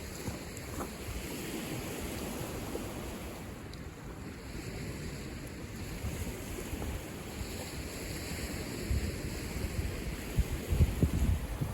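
Lake Michigan waves washing on the shore under a steady rush of wind, with gusts buffeting the microphone that grow stronger near the end.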